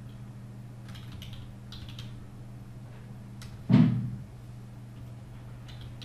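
Computer keyboard typing: a few scattered key clicks over a steady low hum, with one much louder thump a little past halfway.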